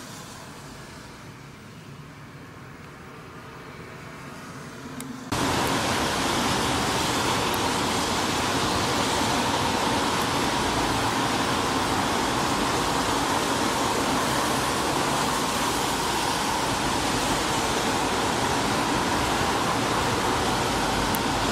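Faint steady background, then about five seconds in a loud, even hiss cuts in abruptly and holds steady.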